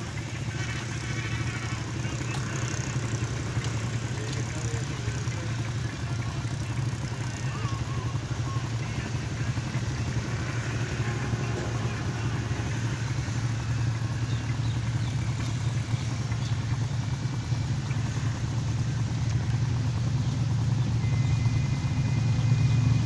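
GE U40 diesel-electric locomotive hauling a long freight train, its engine running with a steady low drone that grows louder as the train approaches.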